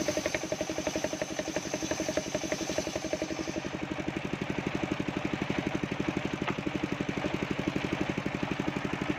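The engine of a homemade table circular saw runs with a steady, fast pulsing beat. For the first few seconds the spinning blade cuts coconut wood with a high whine, which stops about three and a half seconds in while the engine keeps running.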